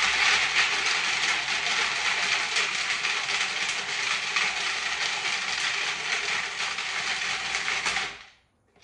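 Food processor running steadily, its blade chopping whole almonds and a garlic clove into small pieces; the motor cuts off about eight seconds in.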